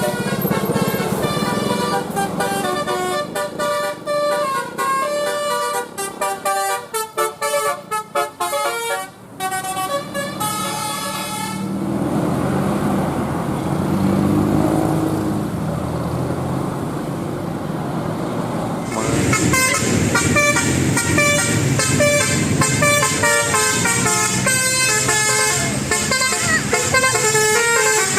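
Bus 'telolet' air horns with several trumpets playing quick stepped melodic patterns of short notes. The tune breaks off for several seconds in the middle, leaving a noisy rumble, then the horns start up again.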